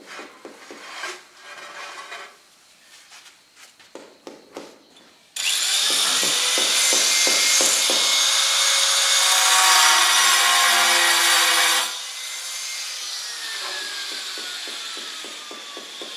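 A few scattered taps and knocks, then about five seconds in a handheld angle grinder starts with a rising whine and cuts loudly through ceramic tile for about six seconds. The cutting noise stops suddenly and the motor's whine falls away as it winds down.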